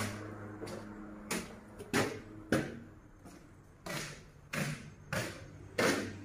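A series of about eight short knocks and clatters, a few at a time, over a low steady hum.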